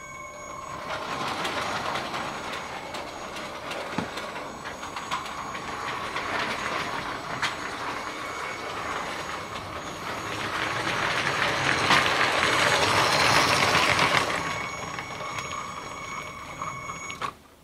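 Motorised LEGO train running along plastic track, a steady rolling and whirring with a few sharp clicks, growing louder as it nears and fading after it passes.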